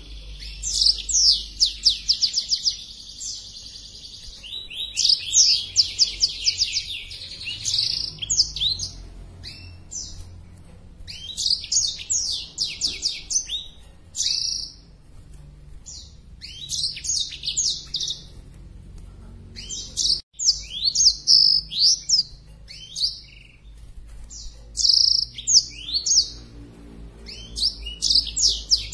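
Black-throated canary (blackthroat) singing: repeated phrases of rapid, high, falling notes, each phrase a few seconds long with short pauses between. It is the full song of a bird in breeding condition.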